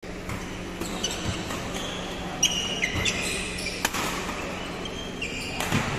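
Indoor badminton play: rackets striking a shuttlecock several times, with short high squeaks of shoes on the court floor.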